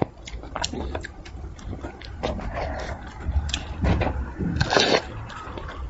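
Close-miked eating sounds of a person eating spicy braised fish: lip smacks, small wet clicks and chewing, with a louder sucking slurp about four and a half seconds in as she sucks meat off a piece held in chopsticks.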